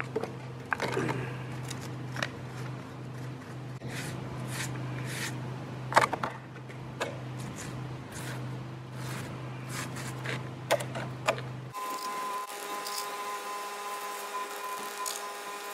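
Scattered clicks and knocks of a plastic bottle and a small paint roller being handled while resin is poured and rolled onto fibreglass over a concrete crack, over a steady low hum. About twelve seconds in the hum stops abruptly and a steady whine of several tones takes over.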